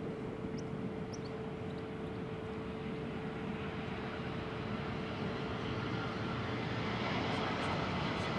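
Jet engines of an Airbus A320-family airliner on final approach: a steady rushing hum that slowly grows louder as the aircraft comes closer.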